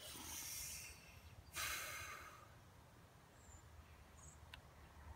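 Two soft breaths close to the microphone, each under a second long, in the first half; the jigsaw is not running. Later come two faint, short, high chirps.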